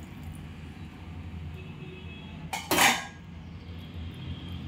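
Water poured from a blender jar into a pan of curry, then a short, loud clatter of cookware about two and a half seconds in.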